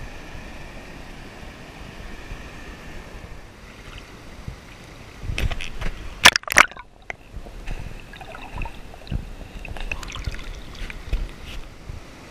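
Water sloshing and lapping against an action camera held at the river's surface, with a few loud splashes about five to seven seconds in and more small splashes after.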